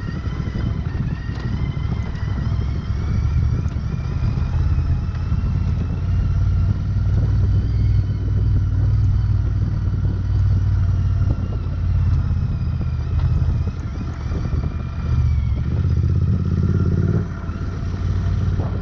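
Royal Enfield Interceptor 650's parallel-twin engine running steadily at low speed on a rocky dirt track, dropping off briefly near the end.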